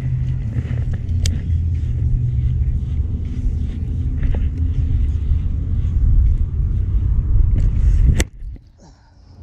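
A loud, steady low rumble that cuts off abruptly about eight seconds in, just after a sharp click.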